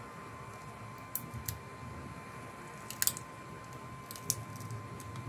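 Light clicks and taps of an iPhone 7 screen assembly and phone frame being handled. There are a handful of scattered clicks, the sharpest cluster about three seconds in, over a faint steady whine.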